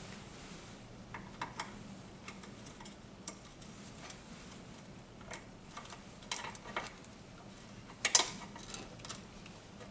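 Ratchet of a short 10 mm socket wrench clicking in short runs while the battery hold-down bracket nut is worked, with a louder metal clack about eight seconds in.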